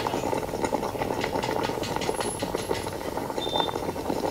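Tea sizzling and bubbling as it is poured into a red-hot clay kulhad, a dense crackling hiss of tandoori chai boiling up in the heated cup.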